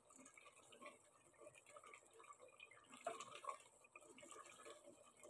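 Faint bubbling and popping of a thick masala simmering in a metal pot while a spatula stirs it, with a louder cluster of pops and scrapes about three seconds in.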